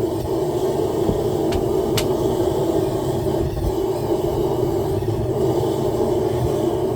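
Blacksmith's forge running: a steady rushing noise with a strong hum, and two faint ticks about one and a half and two seconds in.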